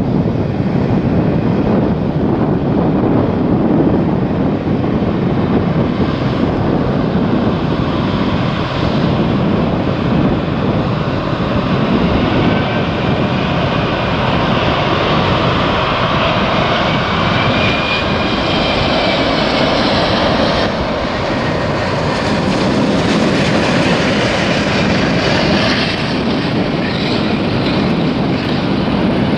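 Boeing 777 airliner's twin jet engines running at low thrust as it taxis and turns onto the runway: a steady jet roar, with a faint engine whine that rises and falls midway.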